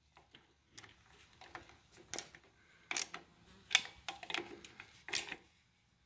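Ratchet wrench clicking faintly in short bursts, about eight times, while a nut is tightened down.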